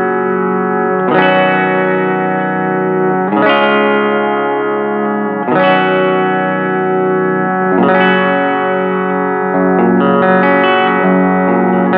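Eart headless electric guitar on its bridge humbucker, through a little reverb and delay into a Fender Rumble 15 amp fitted with a guitar speaker: full chords strummed and left to ring, a new chord about every two seconds.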